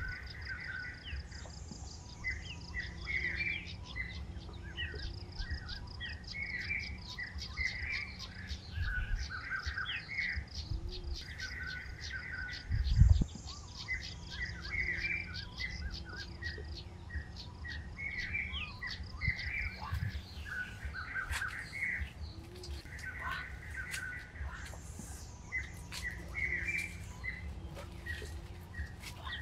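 A songbird singing short chirpy phrases again and again, in bouts with brief pauses between them, over a steady high trill. A single low thump about halfway through.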